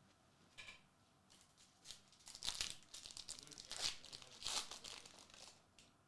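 Trading card pack wrapper being torn open and crinkled by hand: a soft tick, then a few seconds of dense, crackling tearing and rustling.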